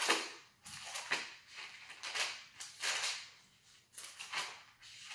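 Soft paper rustling: Bible pages being leafed through in short brushes about once a second while a passage is looked up.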